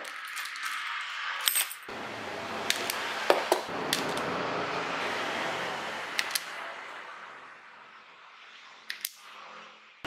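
Handling noise from wiring hand tools, a wire stripping and crimping tool among them: scattered sharp metallic clicks, about eight in all, over a steady hiss that fades in the last few seconds.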